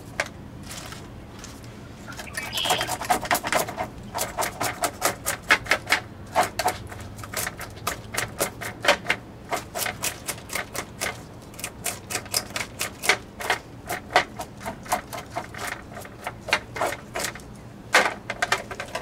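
Metal fish scaler scraping the scales off a small bluegill clamped to a cleaning board: quick rasping strokes, several a second, starting about two seconds in.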